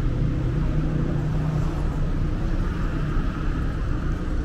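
Street traffic noise: a steady low engine hum over a constant rumble, the hum fading out about three seconds in.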